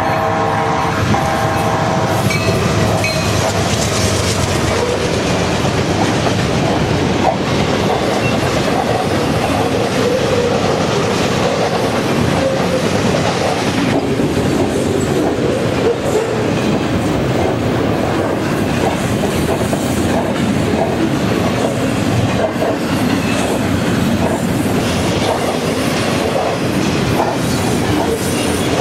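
Union Pacific locomotive horn sounding a chord that stops about two seconds in, then the steady noise and clickety-clack of a doublestack container train's wheels rolling past on the rails.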